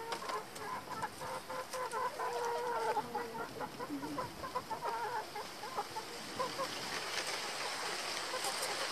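Chickens clucking in a coop, a run of short, broken calls that die away after about six seconds.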